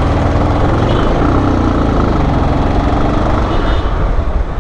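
Motorcycle engine running steadily while being ridden along a road, with road and traffic noise around it.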